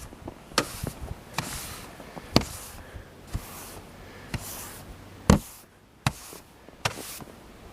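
Snow brush sweeping snow off a vehicle: a run of strokes about once a second, each a light knock followed by a short swish, with one harder knock about five seconds in.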